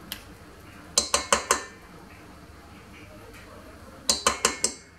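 A metal spoon clinking against a stainless steel stand-mixer bowl, as butter is knocked off it into the dough. There are two quick runs of about five ringing taps, one about a second in and one near the end.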